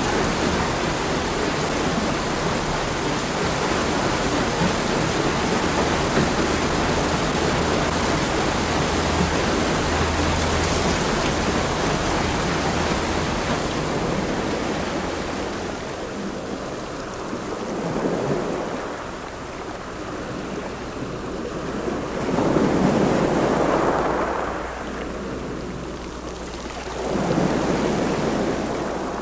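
A loud rushing noise, dense and even for about the first half, then dropping back and rising in three slow swells.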